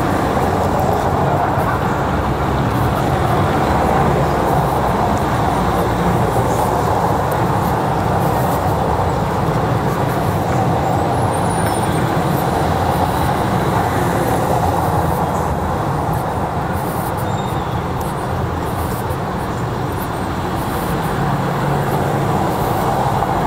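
Steady city street noise, mostly road traffic going by.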